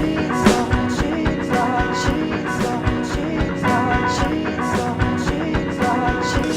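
Instrumental rock music with a steady drum beat under sustained pitched instruments.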